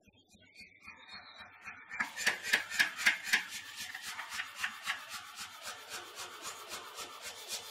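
Power hammer striking a handled punch, driving the eye into a glowing block of steel for a hammer head: a fast, even run of blows about four a second that starts about two seconds in, heaviest for the first second and a half and then lighter.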